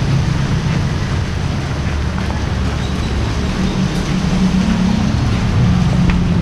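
Steady street traffic noise: a vehicle engine running nearby with a low, even hum.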